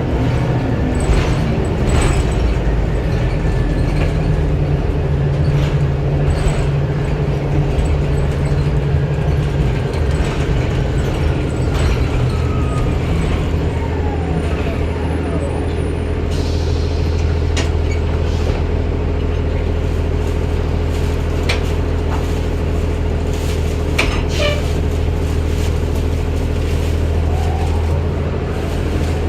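Inside a 2009 Orion VII Next Generation hybrid bus under way: its Cummins ISB diesel engine runs steadily while the BAE Systems HybriDrive electric drive whines, the whine falling in pitch about ten seconds in. Short rattles and knocks from the cabin, and a brief air hiss midway.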